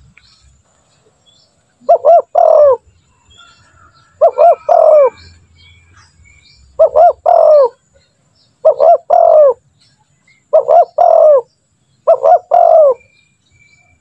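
Spotted dove cooing in six repeated phrases about every two seconds. Each phrase is two short notes and then a longer, falling coo.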